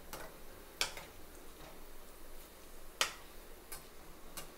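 Ragi and spinach pakodis deep-frying in a kadai of hot oil while being turned with a metal slotted spoon: a faint sizzle broken by about four sharp clicks.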